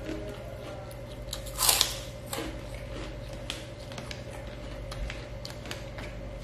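A person eating nasi padang by hand close to the microphone: chewing and scattered small clicks from the mouth and fingers, with the paper wrapper rustling as the fingers gather rice. One louder crackle comes about a second and a half in. A steady low hum runs underneath.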